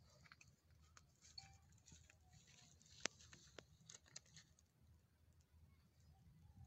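Near silence: faint scattered clicks and ticks over a low rumble, with one sharper tick about three seconds in.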